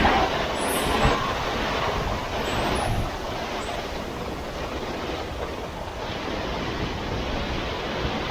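Hurricane Ian's winds blowing hard in a steady, rushing roar, with stronger gusts in the first three seconds that ease slightly after that.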